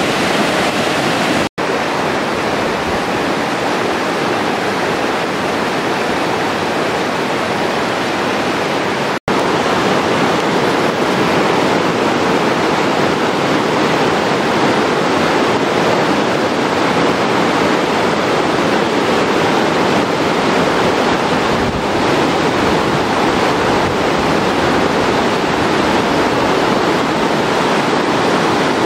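Loud, steady rush of whitewater cascading over flat rock at a waterfall. The sound cuts out for an instant twice, about a second and a half in and again about nine seconds in.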